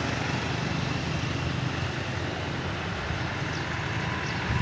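Combine harvester's diesel engine running steadily with a constant low hum.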